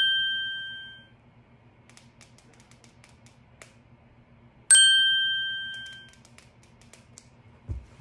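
Phone message notification chime: the ringing tail of one at the start, then a second chime about five seconds in that rings out over a second or so, over a faint low hum. A soft low thump near the end.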